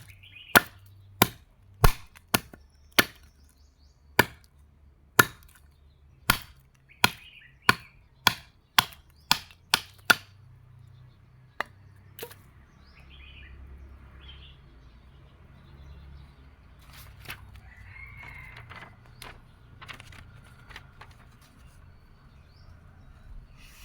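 A quick run of sharp, dry blows, about two a second, that stops about ten seconds in, followed by a few isolated knocks.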